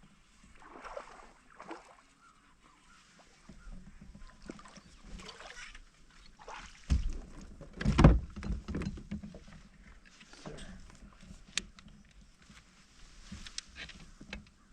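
Sounds of someone moving about in a fishing kayak on the water: soft, irregular swishes and knocks on the hull, with two louder thumps about seven and eight seconds in.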